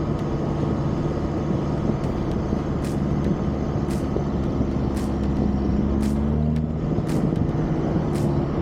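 A 4WD's engine and road noise while driving, a steady hum whose pitch rises and falls with speed, with faint sharp clicks about once a second.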